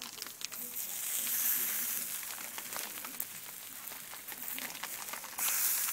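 Bratwurst and meat sizzling on a charcoal grill, with scattered crackles. The hiss swells about a second in and comes up again suddenly near the end.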